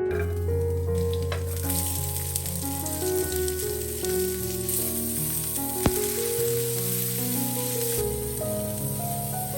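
Food sizzling in a frying pan, a steady hiss that sets in about a second and a half in, over soft piano music. A single sharp click a little past halfway.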